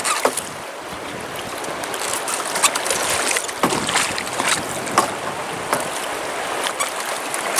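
River water rushing and lapping along a drift boat, with scattered sharp splashes as a trout thrashes in a landing net held in the water over the side.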